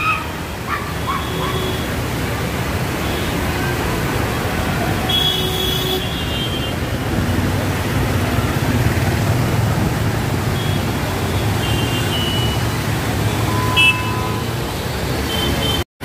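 Road traffic in flooded streets: a steady low rumble of engines and tyres on a waterlogged road, with a short horn about five seconds in and faint horns or voices later.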